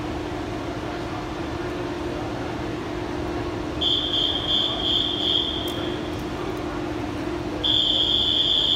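Swim-meet start sequence: a long high whistle blast about four seconds in, calling the swimmers onto the blocks, then a second long high tone near the end, the start signal for the race, over a steady low hum.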